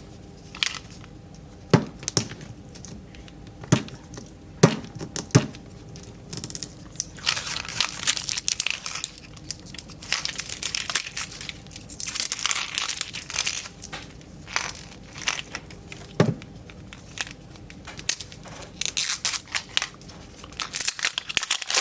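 Plastic wrapping crinkling and tearing as Mini Brands toy capsule balls are unwrapped, with a few sharp plastic clicks, most of them in the first few seconds.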